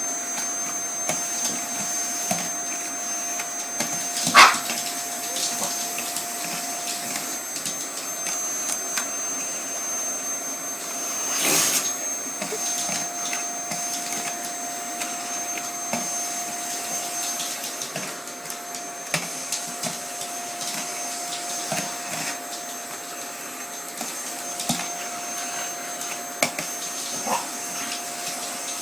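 Vacuum cleaner running steadily, a motor hum with a high whine, broken by a few short sharp sounds, the loudest about four seconds in and another near twelve seconds.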